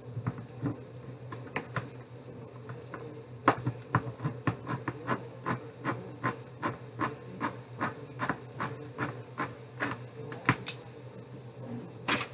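Knife chopping on a cutting board: irregular sharp knocks, about two or three a second, over a steady low hum.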